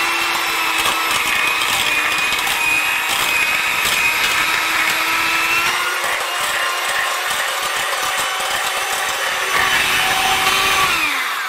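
Electric hand mixer running steadily as its beaters mash boiled cauliflower in a metal pot. Near the end it is switched off and its whine falls away as the motor spins down.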